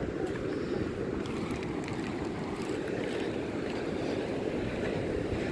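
Steady rush of surf breaking on a sandy beach, with wind rumbling on the microphone.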